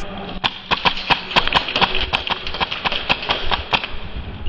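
Rapid, irregular sharp snaps and clicks, about six or seven a second: an airsoft rifle firing shots mixed with running footsteps on a concrete floor.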